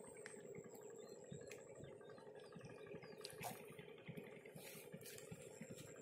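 Near silence: a faint steady hum with a thin high tone and a few soft clicks.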